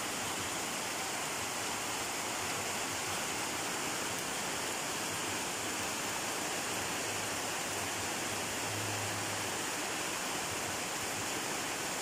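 Rain falling steadily on wet concrete and puddles, an even hiss.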